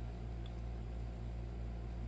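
Steady low hum with a faint hiss: background room tone with no distinct event.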